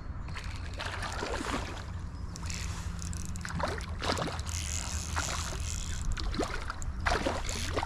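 Water splashing and sloshing in irregular bursts as a hooked tiger trout is played at the surface, over a steady low wind rumble on the microphone.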